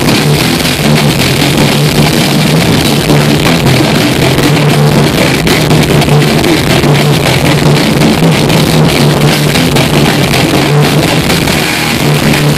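Death metal band playing live and very loud: distorted electric guitars, bass and drums in a dense, unbroken wall of sound over a steady low note.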